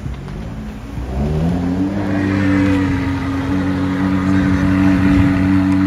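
An engine or motor starts up about a second in, its pitch rising over about a second, then runs steadily at a constant pitch.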